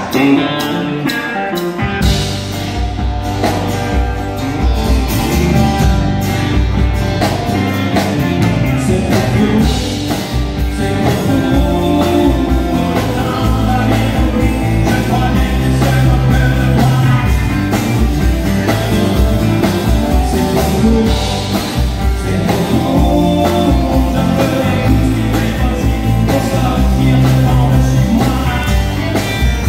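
Live country band playing: a male singer with acoustic guitar, backed by electric guitars, bass guitar and a drum kit. The bass and drums come in fully about two seconds in.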